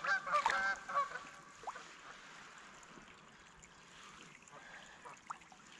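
Geese honking in a quick run of overlapping calls for about the first second, then quieter with a few faint, short rising calls.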